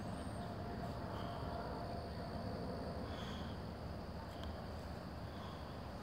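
Woodland ambience: a steady high-pitched insect drone, with a few short chirps, over a low rumble.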